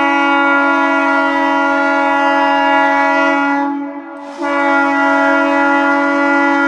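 Train horn sounding a long, steady blast that breaks off about four seconds in, followed almost at once by a second long blast.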